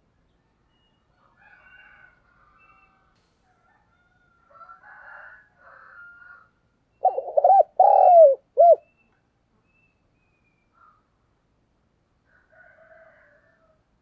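Spotted dove cooing: one short phrase of about four low coos, each rising and falling in pitch, about seven seconds in.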